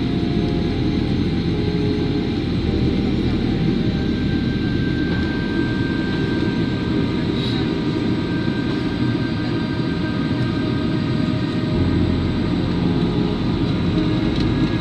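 Steady cabin noise inside a jet airliner in flight: a continuous low rumble of engines and rushing air, with faint steady whining tones above it.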